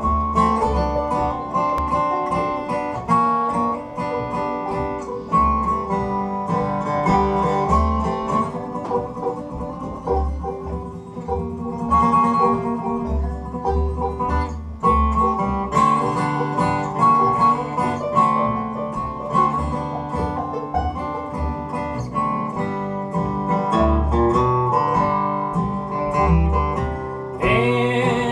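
Bluegrass band playing an instrumental passage without vocals, led by a picked acoustic guitar with other plucked string instruments.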